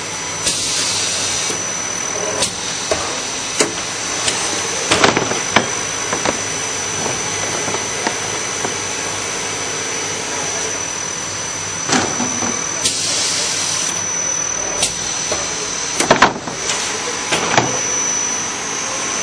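Spiral paper core making machine running steadily with a constant high whine. Sharp knocks and clunks come now and then, the loudest about five seconds in and about sixteen seconds in, and two brief hisses come near the start and about thirteen seconds in.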